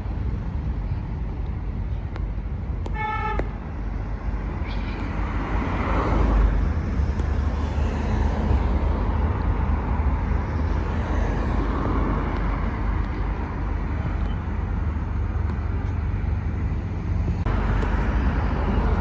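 Road traffic running steadily, with one short car horn toot about three seconds in.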